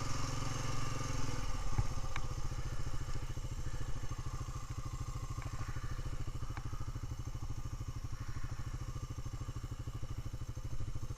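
Honda ATV engine idling at a standstill, a steady drone that settles about two seconds in into an even, fast low pulsing, with a couple of faint clicks.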